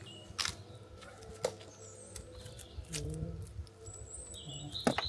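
Small birds chirping in short high whistles, with a few sharp clicks, the loudest two near the end.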